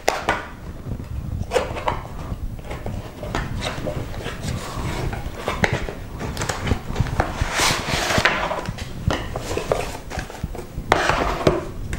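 A cardboard product box being opened by hand: flaps and card scraping and tapping, then paper leaflets rustling as they are pulled out, loudest about halfway through and again near the end.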